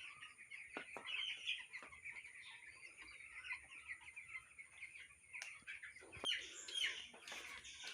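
A large flock of two-week-old broiler chicks peeping and cheeping continuously, many short high chirps overlapping, with a few louder calls about six to seven seconds in and the odd faint click.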